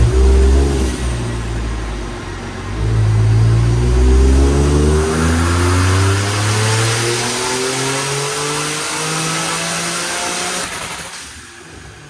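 Turbocharged Hyundai Genesis Coupe 3.8 L V6 making a full-throttle pull on a chassis dyno: after a couple of seconds at lower revs, the engine note climbs steadily in pitch for about eight seconds, then drops away as the throttle closes near the end. Running on an ethanol blend, the run ends without a backfire.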